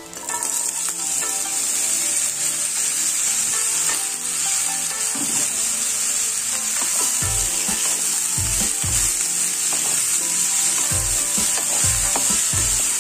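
Chopped bottle gourd dropped into hot mustard oil, sizzling steadily in the pan as soon as it goes in. It is stirred with a wooden spatula, with low knocks of the spatula against the pan from about halfway through.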